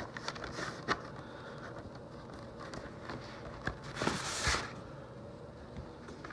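Card sleeves and paper being handled: a sharp click about a second in and a brief rustling scrape about four seconds in, over faint background noise.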